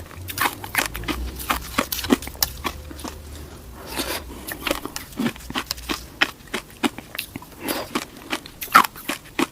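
Ice being bitten and chewed close to the microphone: irregular sharp crunches and cracks, several a second.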